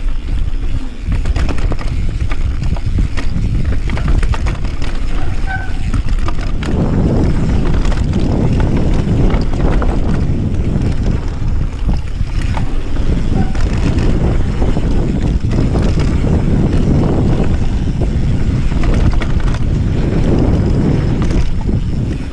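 Mountain bike descending a dirt trail at speed: steady rumble of wind on the microphone and tyres on dirt, with frequent knocks and rattles from the bike over the rough ground.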